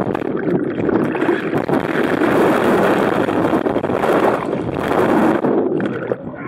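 Whitewater rushing and churning around a camera submerged in a river rapid, a loud steady rush of water and bubbles. Near the end the rush drops away as the camera comes back up to the surface.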